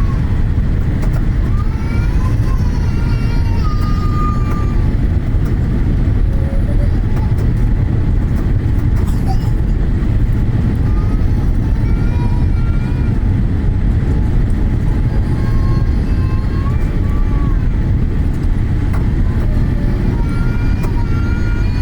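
Strong wind buffeting the microphone: a loud, steady, rough rumble, with scattered short, faint high-pitched calls above it.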